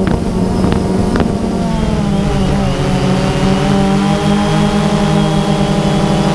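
Multirotor drone's motors and propellers humming steadily, the pitch dipping and settling about two seconds in. A few sharp clicks in the first second or so.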